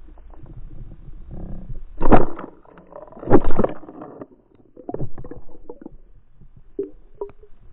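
Muffled underwater rumbling and rushing water picked up by a camera towed behind a trolled lure. It has two loud surges about two and three and a half seconds in, as a pike strikes the lure, then a few smaller knocks.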